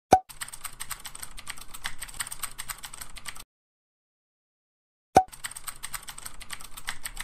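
Typing sound effect: a sharp pop, then about three seconds of rapid keyboard clicks; after a short silence the pop and the clicking come again, as text types itself into an on-screen speech bubble.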